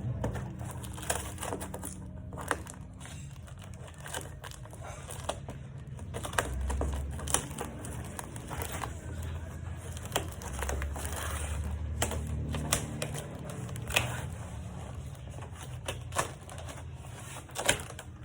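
Irregular clicks, taps and crinkling from a large pet cage and its packaging being unpacked and handled.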